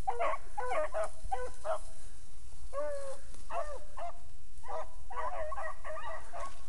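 Beagles baying in short, repeated, rising-and-falling cries, several overlapping at times: the hounds giving tongue as they pick up and run a rabbit's scent.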